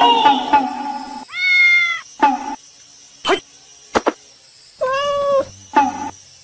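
A cat meowing: two drawn-out meows, about a second and a half in and again about five seconds in, with a few shorter chirps between them.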